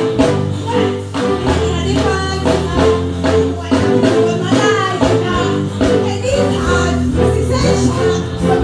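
Live band music: a drum kit beating steadily over a bass line, with a woman's voice singing through the PA microphone.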